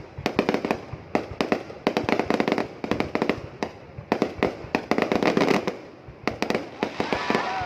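Fireworks going off in quick succession: dense sharp bangs and crackling pops that come in waves, with short lulls between them.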